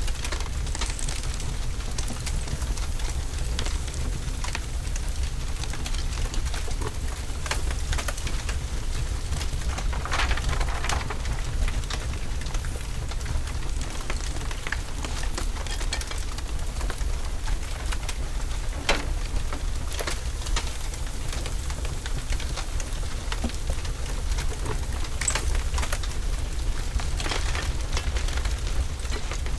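Fire burning, with a steady low rumble and irregular crackles and pops scattered throughout.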